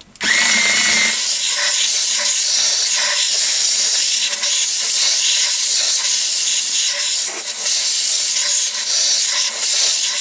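Compressed-air blow gun hissing loudly and steadily as it blows swarf out of a lathe chuck's scroll, with a brief whistle as the air comes on. Underneath, a faint steady hum from the cordless screwdriver turning the chuck key.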